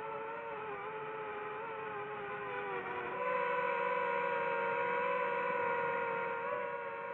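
DJI FPV drone's motors and propellers whining steadily, the pitch wavering with throttle; about three seconds in the whine gets louder and a little higher and holds there.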